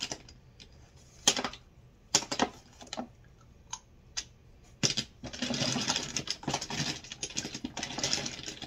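Small plastic cosmetic items being handled in a cardboard box: scattered clicks and knocks at first, then from about five seconds in a steady run of rustling and clattering as the items are rummaged through.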